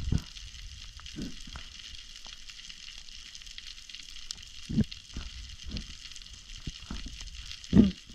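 Underwater crackling hiss from a Mediterranean seabed, the steady sizzle of snapping shrimp, with several dull low thumps, the loudest near the end.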